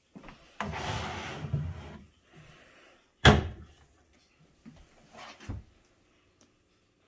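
Wooden cabinet doors and drawers of a kitchen island being worked: a sliding, rubbing sound for about a second and a half, then one sharp bang of a cabinet front shutting about three seconds in, followed by two softer knocks.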